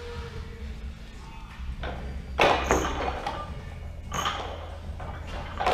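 Olympic barbell loaded with bumper plates being cleaned: a clank with a metallic ring as the bar is caught about two and a half seconds in. Further clanks of the bar and plates follow near four seconds and near the end.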